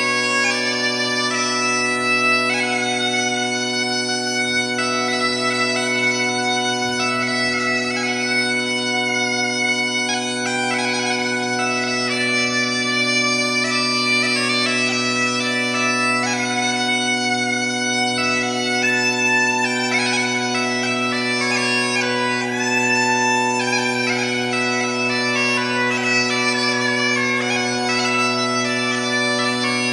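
Bagpipe music: steady low drones held throughout under a slow, wandering chanter melody that grows busier in the second half.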